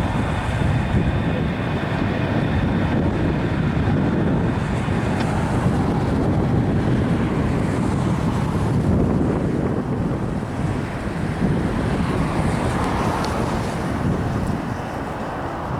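Freight train rolling past, a steady low rumble with wind buffeting the microphone.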